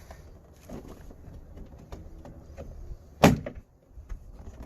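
Plastic retaining clips of a 2009 Toyota Matrix door trim panel popping loose as the panel is pried off the door: light clicks and knocks, then one loud sharp pop about three seconds in.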